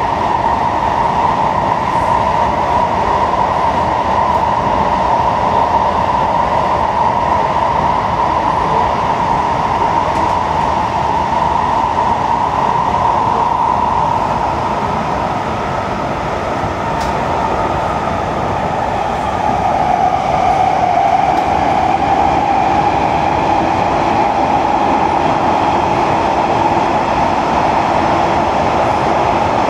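Kawasaki–CRRC Sifang C151B metro train running, heard from inside the carriage: a steady rumble with a strong whine. The whine drops a little in pitch about two-thirds of the way through, and a fainter higher tone joins it.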